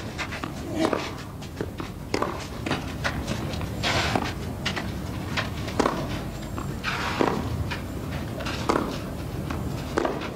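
Tennis rally on a clay court: a ball struck back and forth with rackets, about one hit every second and a half, with the players' footsteps on the clay between shots.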